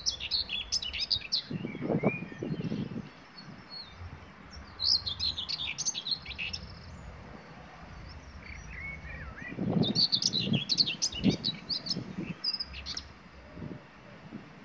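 Common whitethroat singing: three short, rapid song phrases a few seconds apart.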